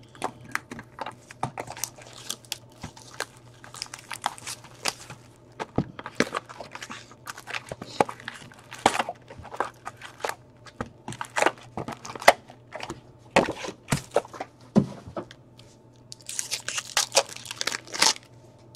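Plastic wrap and card pack wrappers crinkling and tearing as a box of trading cards and its first pack are opened, with scattered crackles and clicks. A dense burst of crinkling comes near the end.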